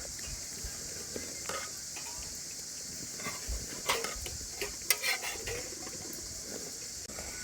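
Steady high chirring of insects, with a short run of tableware clinks about four to five seconds in.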